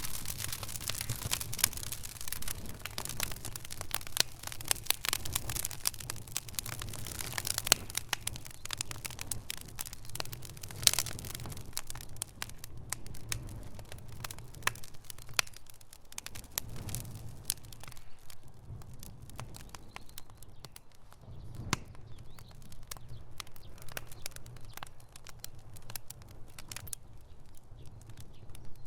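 Fire crackling: many sharp pops and snaps, thickest in the first dozen seconds and thinning out after, over a low steady rumble.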